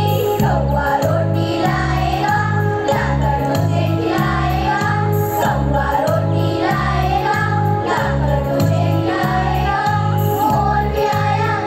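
A large children's choir singing together over music with a steady, repeating bass beat.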